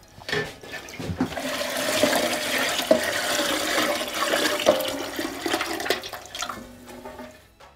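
Curds and whey poured from a large basin through cheesecloth into a steel pot: a steady splashing pour that builds about a second in and trails off near the end.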